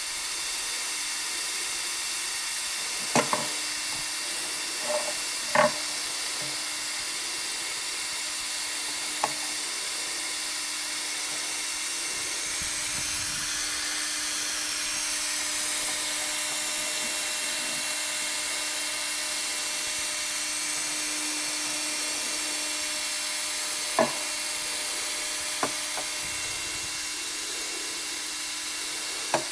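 Steady whirring hiss with a low hum from a powered-on Ultimaker 2 3D printer's cooling fans, broken by a few sharp knocks and clicks.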